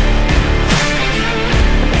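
Loud rock background music with guitar and a driving drum beat.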